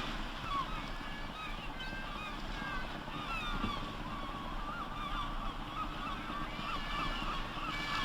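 A flock of birds calling: many short, overlapping cries that rise and fall in pitch, over a steady wash of sea noise.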